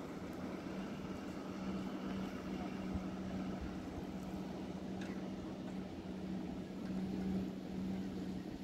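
Pump machinery running with a steady, unchanging hum over an even background noise.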